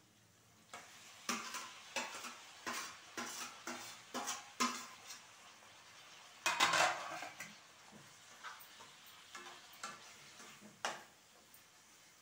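Perforated metal spatula scraping and stirring in a kadai as chopped tomatoes and coriander go into hot oil tempering, with a light sizzle. A quick run of scraping strokes, a louder, longer scrape about six and a half seconds in, then occasional strokes.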